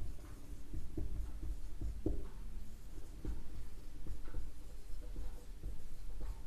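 Someone writing by hand: short, irregular scratching strokes and light taps of a writing tool on its surface.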